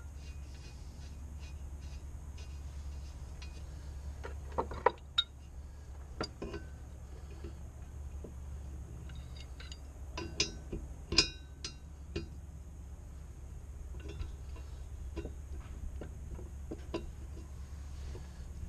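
Scattered metal clinks and taps of hand tools against a bronze boat propeller and its shaft nut as the propeller is fitted, with a pipe wrench set on the nut. The sharpest clinks come around five and eleven seconds in. A steady low hum runs underneath.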